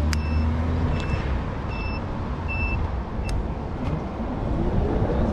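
An iBike electric scooter's electronic beeper sounds four short, evenly spaced high beeps a little under a second apart, over steady wind and road noise. Near the end a rising whine comes in as the scooter picks up speed.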